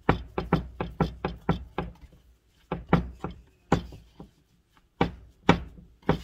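Hands patting and slapping a ball of flatbread dough flat on a floured wooden cutting board, making knocks on the wood. There is a quick run of about four or five knocks a second, then a pause, then single knocks spaced farther apart.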